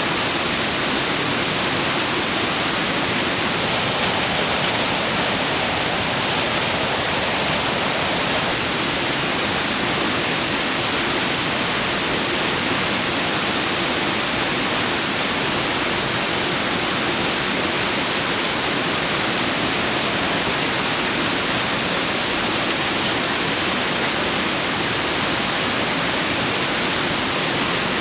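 Waterfall: a steady, loud rush of falling water, an even hiss that does not change.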